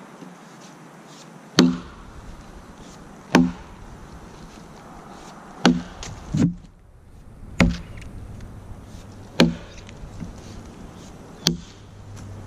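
A Kelly True Temper Wood Slasher boy's axe, with a 2.25 lb Dayton pattern head, chopping into a downed log: sharp woody chops about every two seconds, six in all, with an extra lighter knock just after the third.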